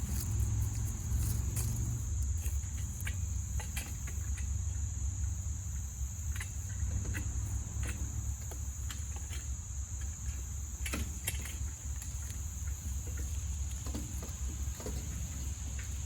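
Insects chirring steadily, a high continuous buzz, over a low rumble, with scattered clicks and knocks as a wood chipper on a tow dolly is pulled by hand across the ground.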